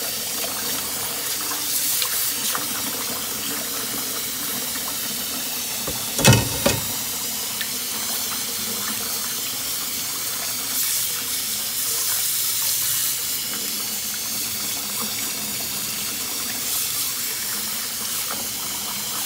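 Tap water running steadily into a stainless steel bowl while fish pieces are rinsed and turned by hand, splashing. About six seconds in there are two sharp knocks close together, the first loud.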